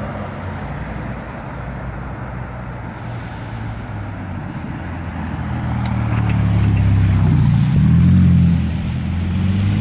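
Ferrari Roma's 3.9-litre twin-turbo V8 running. Its note is softer at first, grows louder through the second half to a peak about eight seconds in, then dips briefly.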